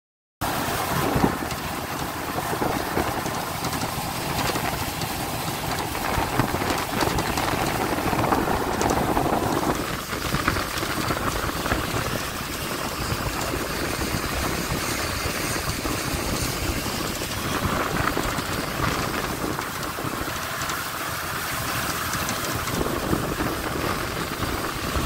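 Motorboat engine running steadily under a constant rush of wind and water noise.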